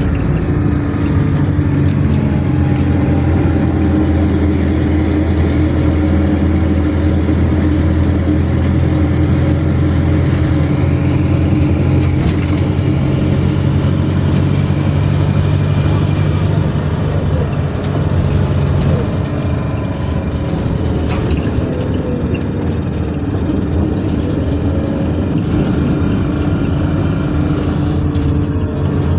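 Inside a moving city bus: the engine's steady drone with road noise, its note dropping a little about halfway through, and a few clicks from the cabin.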